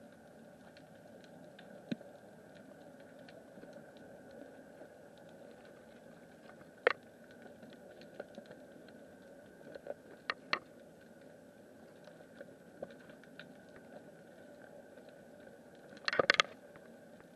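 Underwater ambience picked up by a submerged camera: a steady hiss with scattered sharp clicks, and a short burst of crackling clicks near the end.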